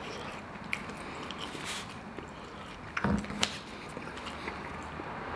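Someone chewing a bite of fried chicken sandwich, with small wet mouth clicks and a brief louder sound about three seconds in.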